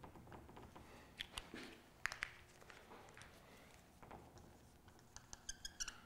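Dry-erase marker writing on a whiteboard: faint short strokes and squeaks, with a quick run of squeaky strokes near the end.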